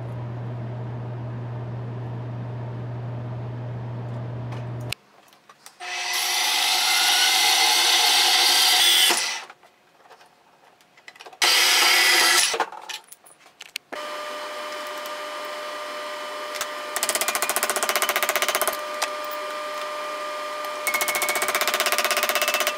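A steady low hum, then a portable band saw cutting metal stock in two loud runs. After it, another power tool running with a steady whine that grows louder twice as it bears on the work.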